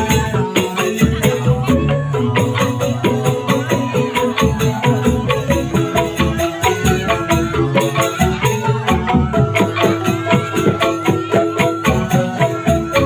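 Instrumental music with a fast, even run of percussion strokes and pitched melodic notes, going without a break.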